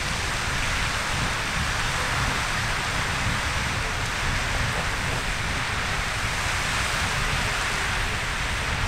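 Riverside Geyser in eruption: a steady rushing hiss of its steam and water column and the spray falling back.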